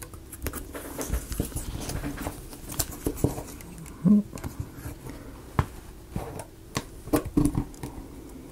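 Small plywood model-kit pieces being handled and fitted together by hand: scattered light clicks and taps, with one brief low-pitched sound about four seconds in.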